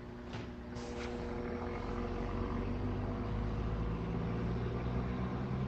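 Low, steady droning hum of several held tones, the so-called 'trumpets in the sky' noise, heard through a phone's voice-message recording. It swells slightly louder over the first couple of seconds.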